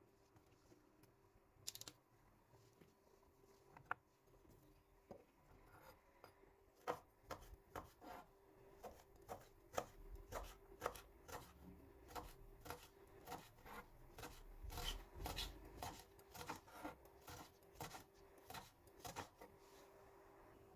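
Kitchen knife slicing long green sweet peppers into rings on a plastic cutting board: a steady run of crisp cuts about two or three a second, starting some seven seconds in after a few scattered knocks.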